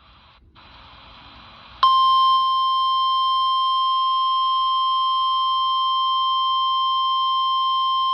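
Weather radio receiver giving a faint static hiss, then about two seconds in the NOAA Weather Radio 1050 Hz warning alarm tone starts suddenly and sounds as one loud steady beep. The tone is the alert that a warning message is about to be read.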